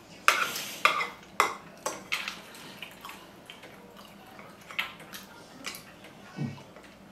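Dishes and utensils clattering and clinking at a meal: a quick run of sharp clinks in the first two seconds, then scattered softer ones.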